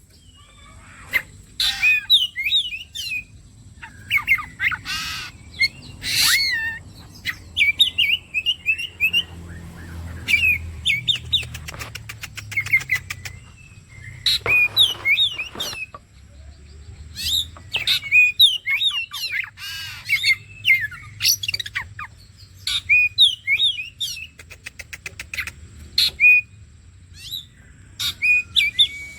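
Oriental magpie-robin (kacer) in full, vigorous 'gacor' song: a fast, varied run of short whistled phrases with frequent harsh, scratchy notes mixed in, a bait recording meant to prompt other kacer to sing.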